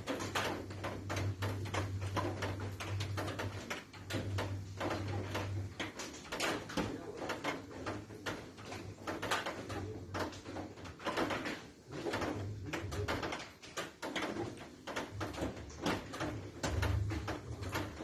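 A neighbour's household noise: irregular knocks and clatter, with a low hum that comes on and off, strongest in the first few seconds and again near the end.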